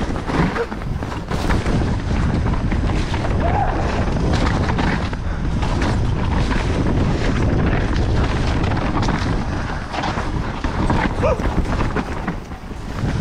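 Downhill mountain bike ridden fast over rough trail: wind buffeting the microphone in a steady low rumble, with frequent knocks and rattles from the bike over the ground. The rush eases briefly near the end.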